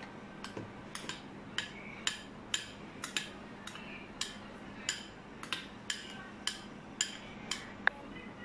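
Metal spoon tapping against a clear bowl, short light clicks at about two a second, the sharpest with a brief ring near the end. A faint steady hum runs underneath.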